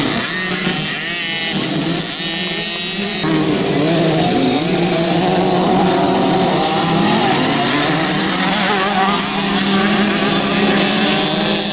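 A pack of mini motocross bikes, small two-stroke engines, racing together, several engines revving up and down in pitch over each other.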